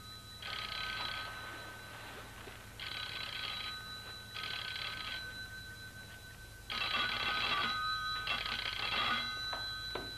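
Telephone bell ringing in pairs of rings, each ring under a second long, with a longer pause between pairs, the British double ring. A faint steady high tone runs underneath.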